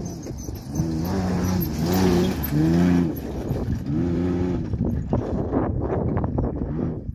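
Ford Ranger prerunner's engine revving in about four surges, each climbing then dropping in pitch, as the truck drives hard along a dirt track, over a steady rumble.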